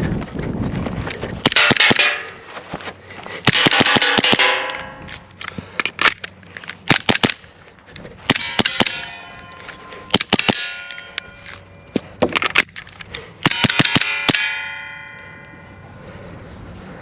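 Umarex Glock 19 Gen 4 gas blowback airsoft pistol firing in quick strings of shots, each a sharp crack with the slide cycling. Metallic clanging and ringing follows several strings and fades out slowly after the last one.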